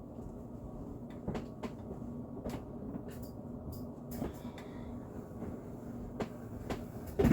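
Scattered light clicks and knocks of kitchen items being handled, about seven in all, over a faint steady low hum.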